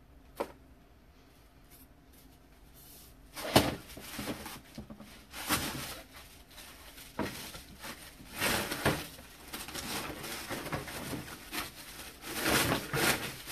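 Knocks and rustling from someone moving about and handling things off camera while chasing a June bug. One sharp knock comes about three and a half seconds in, then an irregular run of softer knocks and rustles.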